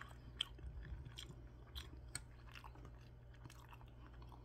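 A person chewing a mouthful of soft curry rice mixed with spicy canned tuna, faint, with scattered small wet clicks of the mouth over a low steady hum.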